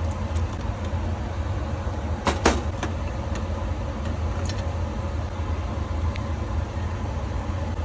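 Steady low hum of clean-room air handling, with a few short clicks of tools working on the opened hard drive, the sharpest about two and a half seconds in.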